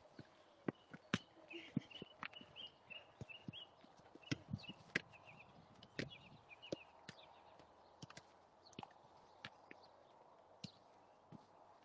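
Faint scattered sharp knocks and taps at an irregular pace. Behind them, short bird chirps come and go, mostly in the first few seconds and again about six seconds in.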